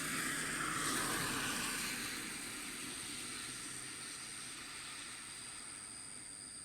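A passing vehicle swells to its loudest in the first two seconds, then slowly fades away, over a steady high trill of autumn insects.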